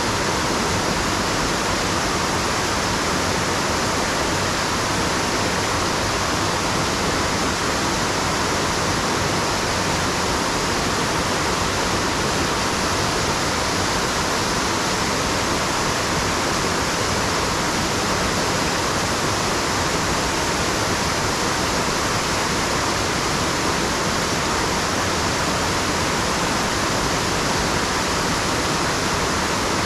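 Waterfall rushing steadily, an unbroken roar of falling water that does not change.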